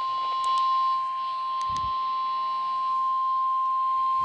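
NOAA Weather Radio 1050 Hz warning alarm tone: a single loud, steady beep held without a break. It signals that a warning message follows, here a severe thunderstorm warning. A brief low thump comes about two seconds in.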